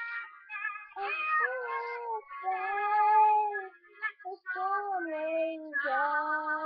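A child singing unaccompanied, a melody of held notes with short breaks between phrases.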